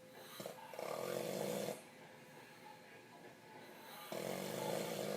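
Loud snoring: two long, harsh, buzzing snores about three seconds apart, each lasting roughly a second.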